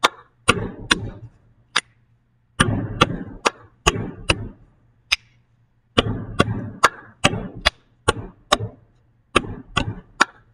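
Hands patting and tapping on a wooden desktop and clapping together, in quick rhythmic groups of strikes with short pauses between the groups.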